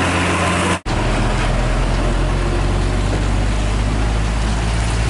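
Heavy diesel dump-truck engine running steadily under load as it hauls on a tow cable, a deep low drone. The sound breaks off for an instant about a second in, then carries on.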